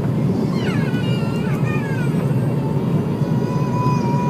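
Cabin noise inside an Airbus A340-300 under power: a loud, steady low roar of its four CFM56 engines and the airflow, heard from the passenger cabin. About half a second in, a high wavering tone joins it. It glides downward in several strands, then settles into a steady high whine.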